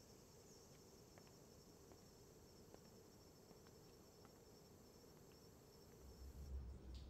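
Faint, steady chirring of insects, like crickets, over quiet natural ambience, with a few faint ticks. A low rumble comes in near the end.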